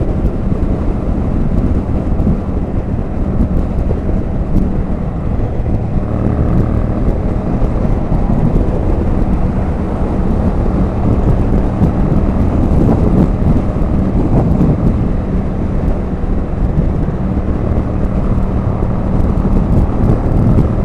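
Motorcycle at steady motorway speed: wind rushing hard over the microphone with the engine's steady drone underneath.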